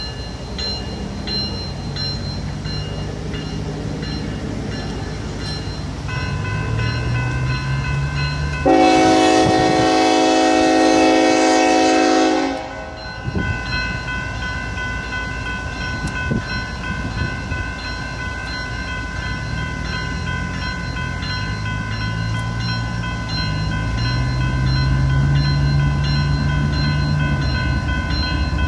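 Norfolk Southern GE ES44AC diesel locomotive sounds one long horn blast of about four seconds, starting roughly nine seconds in, over grade-crossing bells ringing steadily. The locomotive's low engine rumble grows louder as it approaches near the end.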